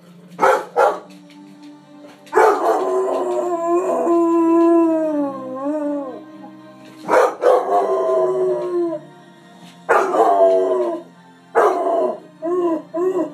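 A puppy howling along to television theme music: two short yelps, then a long howl that slides down in pitch and wavers, followed by several shorter howls and a quick run of rising-and-falling yowls near the end.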